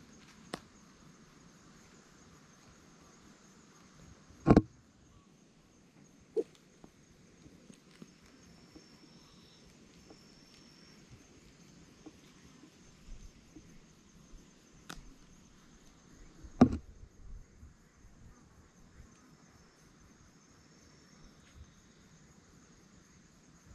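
A few sharp, short knocks over a quiet outdoor background, two of them loud, about four seconds in and again near seventeen seconds, with faint high tones in between.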